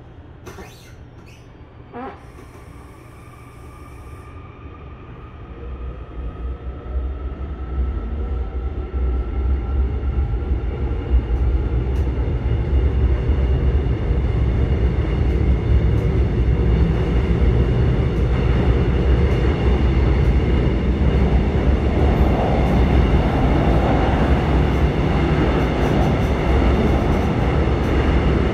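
Inside a Korail electric commuter train car pulling away. A click about two seconds in and a brief hiss come first, then the traction motors' whine rises in pitch as the train accelerates. The low rumble of wheels on track grows louder over about ten seconds and then runs steadily.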